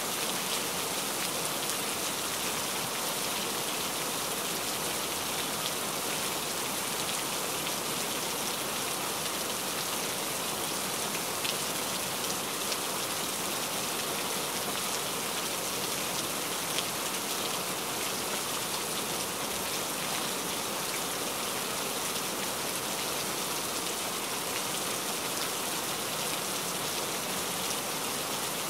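Heavy rain falling steadily, a dense even hiss with fine patter of drops striking a surface.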